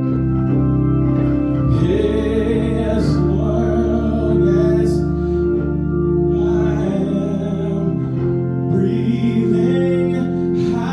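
Worship song with singing over sustained organ chords.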